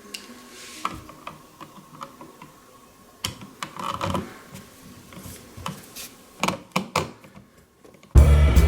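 Scattered light clicks and taps of a screwdriver and a plastic switch being handled while a rocker switch is screwed into its wall box. Music starts loudly near the end.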